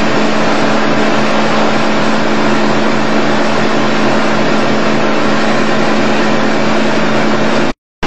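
Motorboat engine running steadily under way, a constant hum under rushing wind and water noise, which cuts out abruptly near the end.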